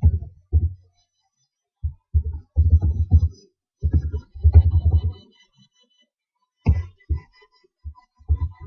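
Computer keyboard typing picked up as dull low thuds, in several quick clusters with silent gaps between them.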